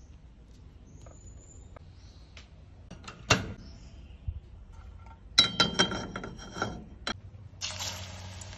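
Metal clinks and knocks around a gas stovetop: one sharp knock about three seconds in, then a cluster of ringing clinks a couple of seconds later. Near the end a steady hiss starts from the aluminium pan of cooking oil on the burner.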